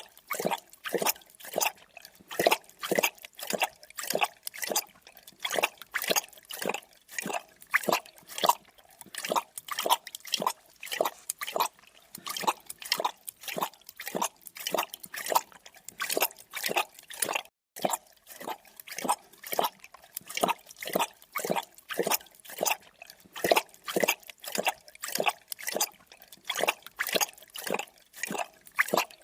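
Creature drinking sound effect: wet lapping and slurping strokes, about two to three a second, keeping an even rhythm, with a momentary break about halfway through.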